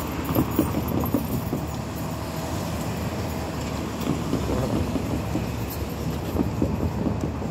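Outdoor road-traffic ambience: a steady low rumble with irregular light knocks scattered through it. The level crossing's warning tones are not sounding yet.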